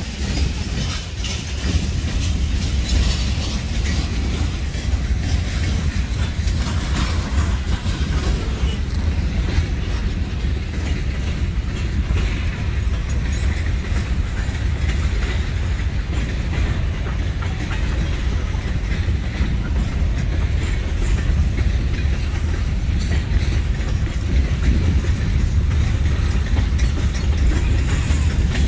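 Freight train cars rolling past at close range: a steady rumble of steel wheels on the rails with wheel clatter over the rail joints.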